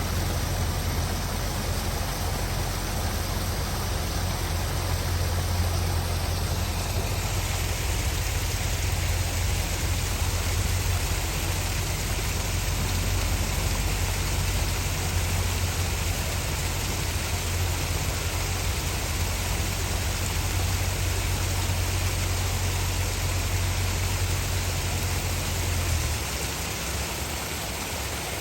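Steady rush of falling water, with a deep low rumble underneath that eases near the end.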